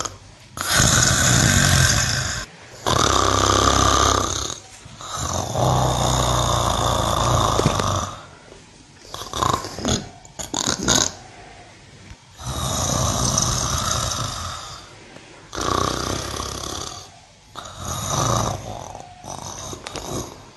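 A cow snoring in long, noisy breaths of one to three seconds each, with a run of shorter, uneven breaths in the middle.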